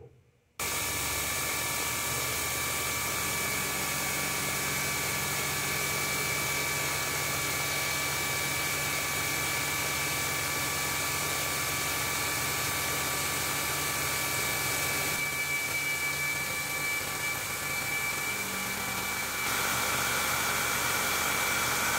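CNC milling machine's spindle running with a fly cutter facing the top of a metal block: a steady whirring hiss with a few steady whine tones. It starts abruptly about half a second in and shifts slightly in tone near the end.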